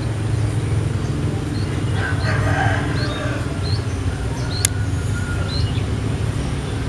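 A steady low motor hum, with faint short bird chirps about once a second and a rooster crowing briefly about two seconds in. A single sharp click near the middle.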